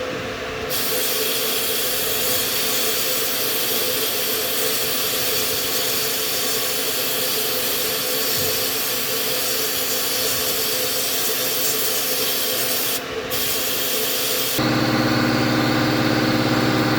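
Sandblaster nozzle blasting abrasive onto old nuts and bolts, a loud steady hiss that cuts out briefly about thirteen seconds in. A lower steady motor hum takes over near the end.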